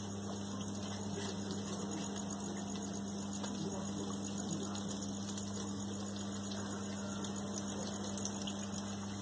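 Biofloc fish tank aeration: the steady low electric hum of the air pump over a constant hiss of bubbling water, with a couple of brief ticks near the end.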